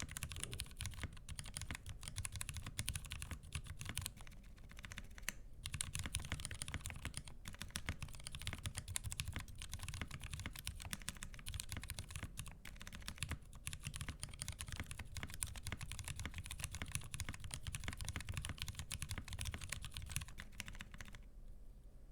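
Steady fast typing on a mechanical keyboard with Kailh Pro Burgundy-housing switches on Razer Orange stems and 45 g springs, lubed with 205g0, in a polycarbonate plate with GMK keycaps. A brief pause about five seconds in, and the typing stops about a second before the end.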